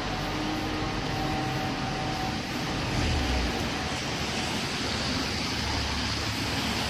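City street traffic on wet roads: a steady hiss of tyres on wet asphalt with the low engine rumble of passing vehicles, swelling about three seconds in and again near the end.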